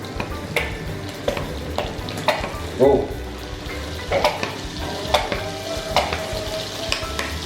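Hot sauce and tomato sauce sizzling in melted butter in a frying pan, with a series of sharp clicks and knocks against the pan and one louder burst about three seconds in.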